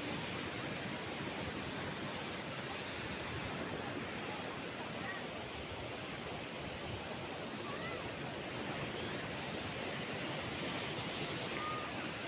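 Sea surf washing ashore steadily, a continuous rushing noise, with a few faint short chirps over it.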